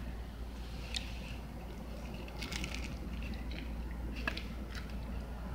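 Someone biting into and chewing a tostada de tinga: a few short, scattered crunches of the fried tortilla, with a cluster about halfway through.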